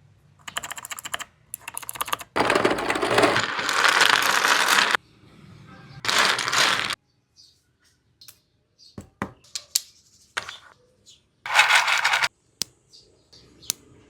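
3D-printed plastic round clicker fidget toys being clicked: rapid runs of sharp plastic clicks and clattering, broken by single clicks and short pauses.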